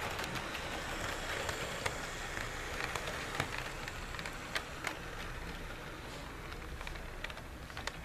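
HO-scale model train with a sound-equipped EMD GP30 locomotive rolling past, pulling passenger cars. There is a steady running noise, and the wheels click irregularly over the track. The noise eases slightly in the second half.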